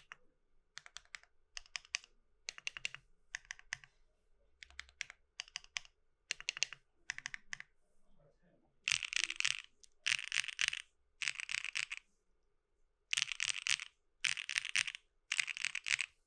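Mechanical keyboard with stock, lubed Keygeek Y3X linear switches on a polypropylene plate, being typed on. Short clusters of keystrokes come first, then six quick bursts of fast typing in the second half.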